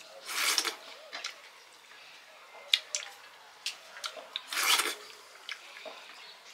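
Fingers scraping and rubbing food across metal plates while eating by hand. There are two longer scraping rustles, one about half a second in and one just before the five-second mark, with several sharp clicks of fingers against the plates in between.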